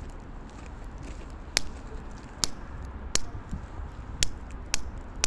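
Footsteps on a pavement: sharp heel clicks at a walking pace, roughly one every 0.7 seconds from about a second and a half in, over a low steady outdoor rumble.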